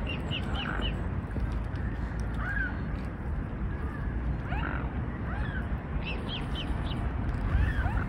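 Young mute swans (grey cygnets) peeping: short high whistled peeps in quick runs of three or four, with a few lower gliding whistles in between, over a steady low rumble.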